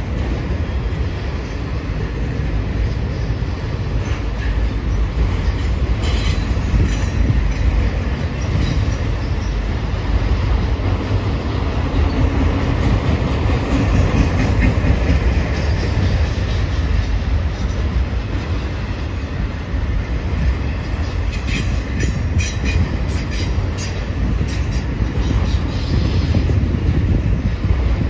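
Long freight train of auto-rack cars rolling past: a steady heavy rumble of steel wheels on rail, with scattered sharp clicks and brief high wheel squeals, most in the last several seconds.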